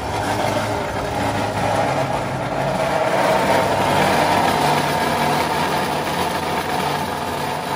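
A tube-cutting machine's saw disc cutting through thick-walled steel tube: a loud, steady cutting noise over the hum of the machine's motor.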